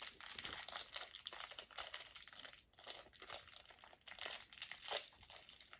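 Thin plastic wrapping crinkling as a small toy accessory packet is unwrapped: a busy run of small crackles, loudest a little over four seconds in.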